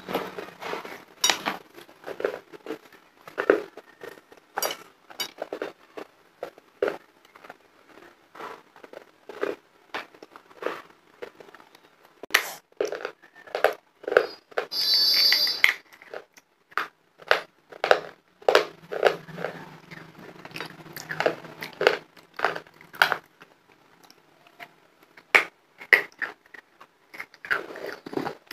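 Close-miked crunching and biting of hard homemade chalk and red-clay lollipops: irregular sharp crunches and clicks, with a brief louder hissing rasp about halfway through.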